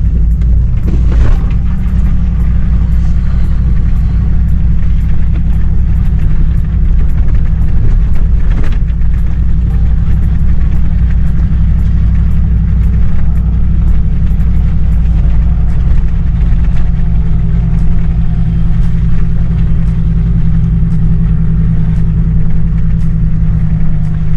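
Pickup truck driving along a snowy, muddy trail: its engine and drivetrain run steadily at a low pitch, with faint scattered clicks over the top.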